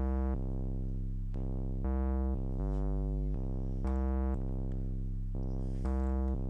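Synthstrom Deluge groovebox playing a looped synth sequence: held synth notes over a deep bass line, changing pitch every half second to a second, the pattern repeating about every two seconds.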